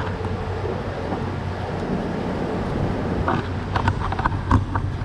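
Steady wind and background rumble with a constant low hum, and a short cluster of light clicks and taps about three to four and a half seconds in.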